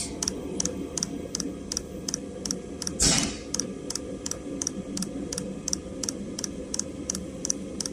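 Diesel heater running at low speed: its fuel dosing pump ticks evenly, several times a second, over a steady hum from the heater. A brief louder rustle about three seconds in.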